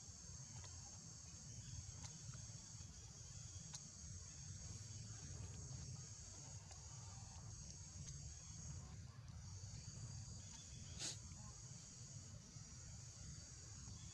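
Faint, steady high-pitched insect chorus, unbroken apart from a brief dip near the middle, over a low rumble, with a single sharp click about eleven seconds in.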